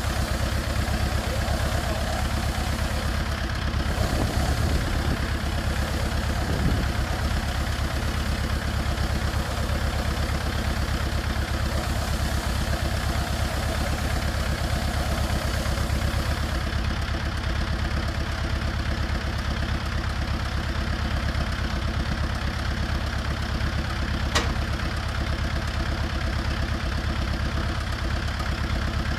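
Small farm tractor's engine running at a steady speed, driving a trailed round-bale wrapper through its PTO shaft while the bale turns in its film. One short click near the end.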